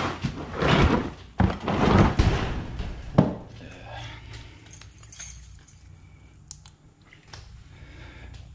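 Clattering and scraping of objects being shifted and handled, in two long loud stretches that end in a sharp knock about three seconds in. After that come quieter scattered clicks and light rattling.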